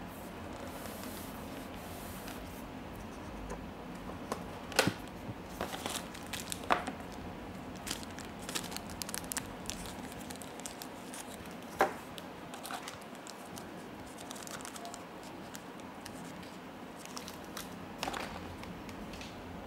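Clear plastic packaging crinkling and rustling as it is handled, with several sharp clicks and taps from the cardboard box and contents. A faint steady low hum sits underneath.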